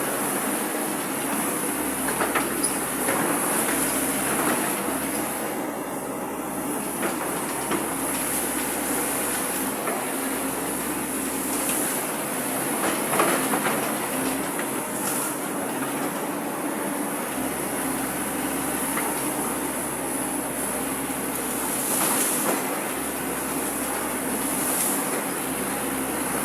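Hydraulic excavator working: its diesel engine runs steadily with a low hum, and the bucket, arm and tracks give occasional clanks and knocks as it digs.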